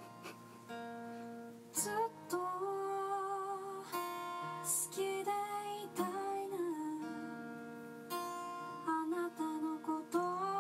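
Background music: a gentle acoustic guitar song.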